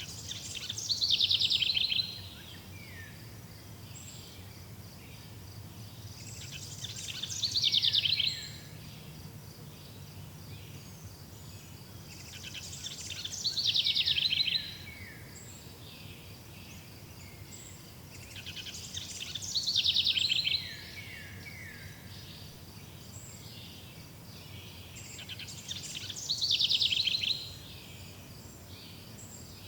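A songbird repeating the same song phrase five times, about every six seconds: each a high, rapid trill that builds in loudness for a second or two and ends with a few falling notes. A steady, high insect chirring goes on underneath.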